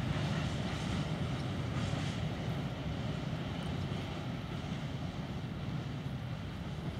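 Freight train of grain hopper wagons rolling away behind an M41 diesel-hydraulic locomotive: a steady low rumble of wheels on rails and the distant engine, slowly fading.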